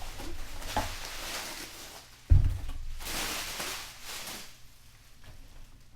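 Packaging being handled and rustled, with a sharp thump a little over two seconds in and a burst of rustling about a second later.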